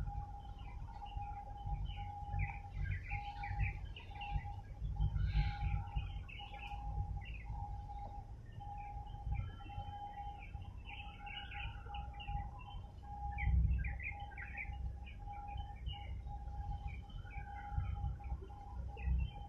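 Birds chirping and whistling in many short calls, over an unidentified steady tone that pulses about once a second and a low, uneven rumble.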